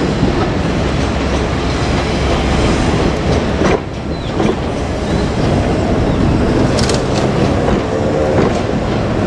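Two-car KiHa 47 diesel railcar set running past, its wheels clacking over the rail joints with a few sharp clicks.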